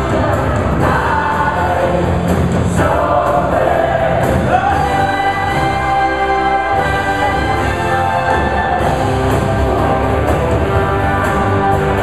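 A live band with several singers singing together in a gospel-style group vocal, holding long notes.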